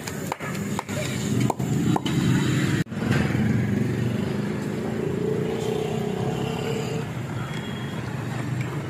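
Busy street noise with motor traffic and indistinct voices. From about four to seven seconds in, a vehicle engine holds a steady note that slowly rises in pitch.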